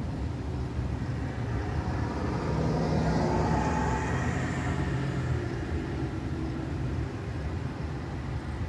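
A car passing on a nearby road, its tyre and engine noise swelling to a peak about halfway through and then fading away, over a steady low rumble.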